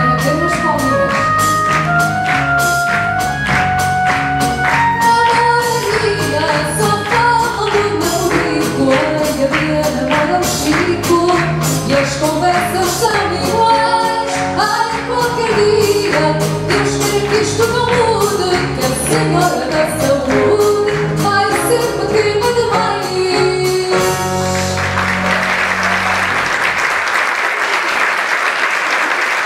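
A woman singing fado to plucked guitar accompaniment. The guitars play alone at first and the voice comes in a few seconds later. The song ends on a final chord, and the audience claps for the last few seconds.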